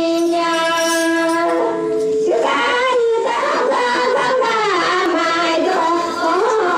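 A Santali song: a long held note for about the first two seconds, then a voice begins singing, its pitch bending and wavering.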